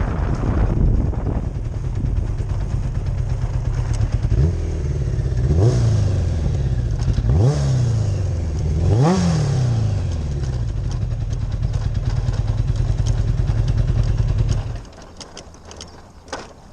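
Yamaha FJ1100's air-cooled inline-four engine running under way, its revs rising sharply and falling away four times in quick succession. About fifteen seconds in, the engine sound drops away suddenly, and a short knock follows.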